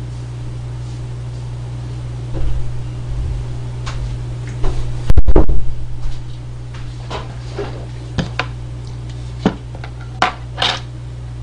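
Footsteps coming up, a loud thump about five seconds in, then a run of clicks and knocks as an ice cream tub and a metal spoon are set down on a hard tabletop. A steady low hum sits underneath.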